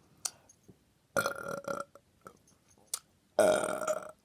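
A person burping twice: two big, drawn-out burps, each holding a steady pitch. The first comes about a second in, and the second, louder and longer, comes near the end.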